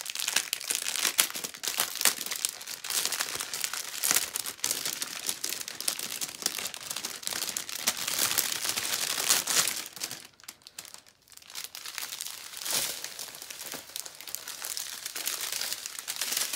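Plastic packaging of a diamond painting kit crinkling and crackling as it is handled, with a short lull a little past the middle.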